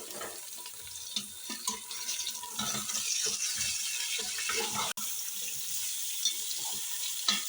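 Mutton pieces sizzling as they fry in hot ghee in a karahi, a steady hiss with scattered knocks from stirring.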